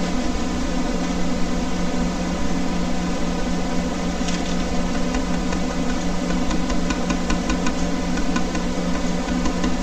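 Air conditioner running with a steady hum and whir. Short, light scratches of a ballpoint pen on paper come about four seconds in and again in a quick run of strokes a little later.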